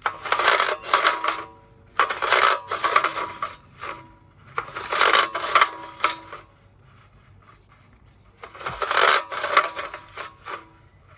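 Recoil pull-starter of a Mountfield Empress 16 lawn mower being pulled and let rewind four times, each pull a rasping scrape of rope with a faint whirr from the spool. The recoil is slipping all over: its spring needs more tension.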